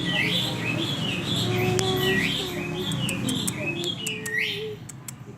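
A kitten mewing over and over, short high-pitched mews several a second, which stop shortly before the end.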